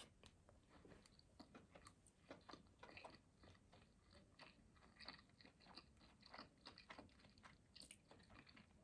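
A person chewing a mouthful of sushi roll close to the microphone: faint, irregular soft clicks of chewing, several a second.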